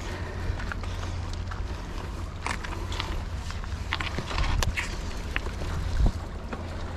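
Bicycle riding over a dirt trail: a steady low rumble of tyres and wind on the microphone, with scattered clicks and rattles as the bike goes over bumps and a heavy thump about six seconds in.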